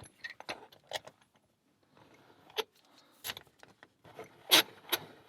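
Scattered metallic clicks and clinks, jangling like keys, as a lock and its metal parts are handled and set into a bench vise. The loudest knocks come about four and a half seconds in.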